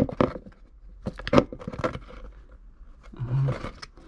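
Sharp little clicks and scrapes of fingers and metal as a motorcycle engine's oil drain bolt is worked loose by hand, a few around the start and a quick cluster in the middle.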